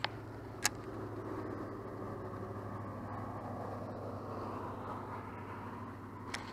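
A car passing on a road, a steady rush of tyres and engine that swells after the first half second and eases off near the end. Three sharp clicks sound over it: one at the start, one about half a second later and one near the end.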